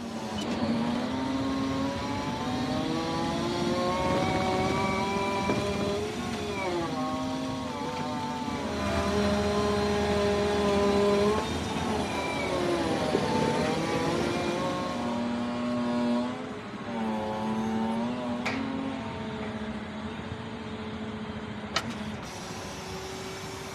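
Forklift driving and lifting pallets, its motor note rising and falling in pitch with the moves. Two sharp knocks come in the last few seconds.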